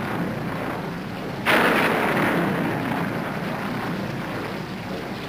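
A rumbling sound effect with a sudden louder surge about a second and a half in, which then slowly fades.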